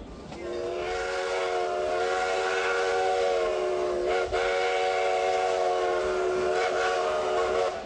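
Steam locomotive whistle sounding a chord of several steady notes, in two long blasts with a brief break about four seconds in.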